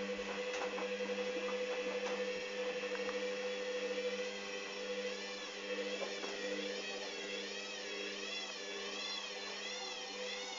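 Hoover Dynamic washing machine spinning an unbalanced load, its motor running with a steady hum and a high whine. From about halfway through, the whine wavers up and down in pitch about once a second, with a few faint knocks near the start.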